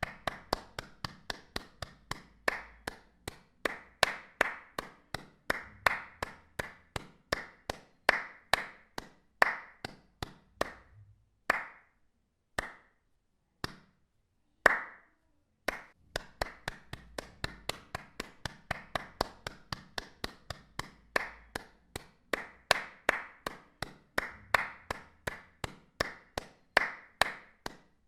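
Hand claps in a quick, uneven series of about three a second. Around the middle the series thins to a few spaced single claps with short silences between them, then the quick series resumes.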